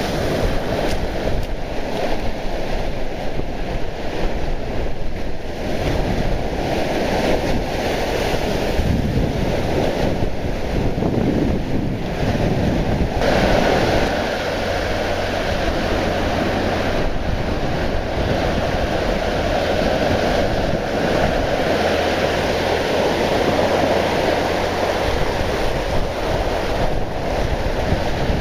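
Surf breaking and washing up onto a sandy beach, a steady rush of water, with wind buffeting the microphone.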